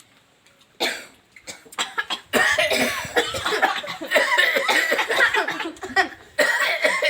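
Several people coughing: a few separate coughs at first, then from about two and a half seconds in many coughs overlapping. The coughing is set off by eating cashew apple mixed with red chilli and salt.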